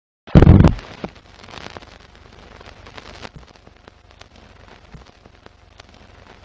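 Intro sound effect: a loud low hit about a third of a second in, then a faint crackle with scattered clicks, the surface noise of old film run under a countdown leader.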